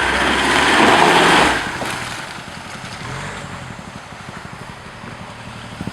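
Off-road 4x4 vehicle's engine under hard throttle for about a second and a half, then easing off to a lower, steady run.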